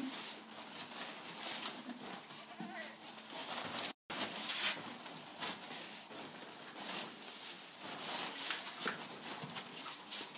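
Plastic sack of softwood shavings crinkling and rustling as a pig roots its snout into it, with a short animal call about two and a half seconds in.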